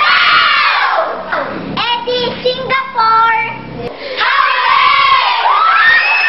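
A group of girls shouting together in high voices, with a short stretch of held sung notes in the middle before the shouting picks up again.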